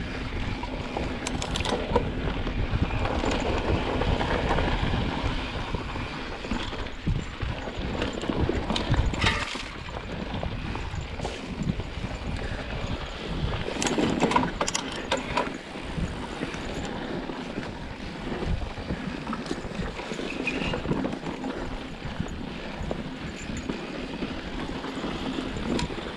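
Mountain bike riding down a rough dirt trail, heard from a camera on the rider: a steady rush of tyre and rolling noise with the bike rattling over bumps. Sharp knocks come at a few points, about 9 and 14 seconds in.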